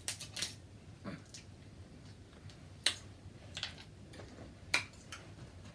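Eating sounds close to the microphone: about six scattered sharp clicks and smacks from seafood being eaten, the loudest about three seconds in and near the end.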